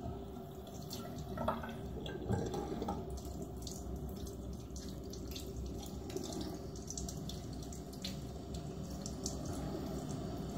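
Bathroom tap running steadily into a sink, with small splashes and drips; the flow comes on abruptly at the start.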